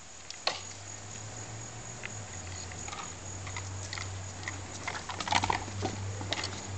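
Doberman pup moving about close by, making scattered light patters and clicks, with a denser, louder run of them about five seconds in, over a steady low hum.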